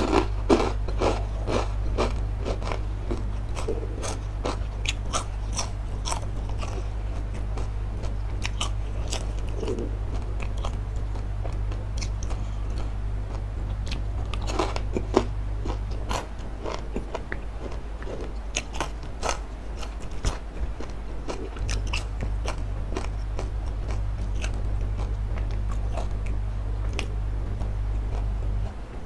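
Close-miked crunching and chewing of crispy fried wontons, with crackly bites coming thickly at the start and again past the middle. A steady low hum runs underneath, dropping out for a few seconds past the middle and stopping just before the end.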